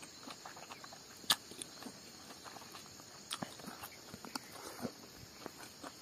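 A person eating by hand, chewing smoked pork and rice with soft mouth noises and a few sharp lip-smack clicks, over a steady high hum of insects.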